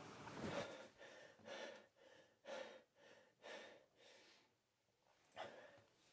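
Quiet breathing of a man lying in bed: four short, noisy breaths about a second apart, a pause, then one more breath near the end.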